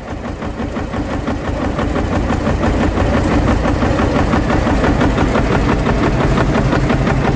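Field Marshall Series 2 tractor's single-cylinder two-stroke diesel running with a rapid, even beat, growing louder over the first two seconds or so and then holding steady.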